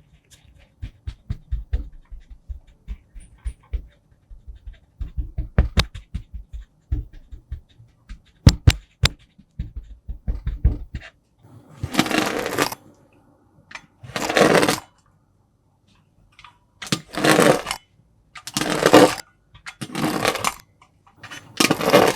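Kinetic sand being cut and worked, with no music. First comes a run of soft, low taps with a few sharp clicks. Then, from about halfway, six separate crunchy, hissing strokes follow, each under a second long.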